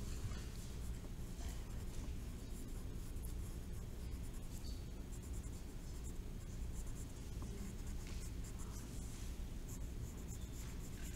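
Colored pencil shading on paper, a faint continuous scratching, over a steady low hum.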